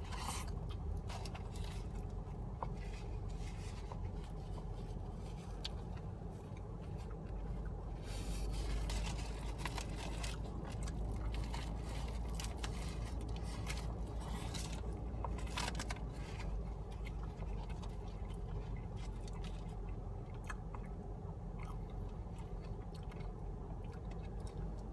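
A person chewing and biting into a grilled chicken sandwich, with its foil wrapper crinkling in several short bursts. A steady low hum sits underneath, inside a car.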